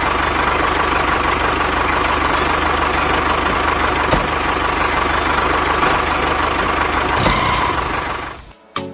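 Tractor engine idling steadily with a low, even knock, fading out near the end. A few short musical notes follow.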